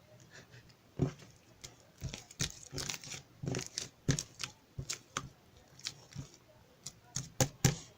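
Irregular crinkling and tearing of handled material, with scattered sharp clicks and taps, several of them louder near the end.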